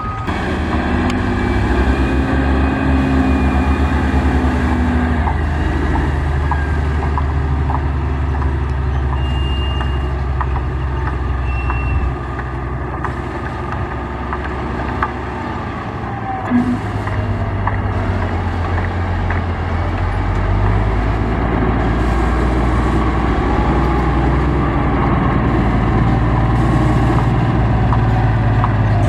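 Heavy diesel construction machinery running with a steady low engine drone, which shifts in pitch about two-thirds of the way through. A few short knocks sound in the middle.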